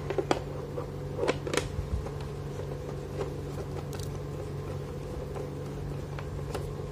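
A few small clicks and taps of a thin tool and fingers on a hard plastic figure stand base, most of them in the first two seconds, over a steady hum.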